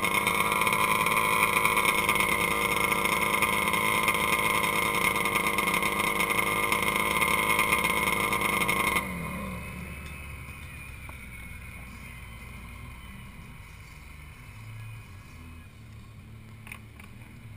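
Snowmobile engine running steadily at a fast idle, then shut off about nine seconds in, its pitch falling as it spins down; after that only a faint background hiss remains.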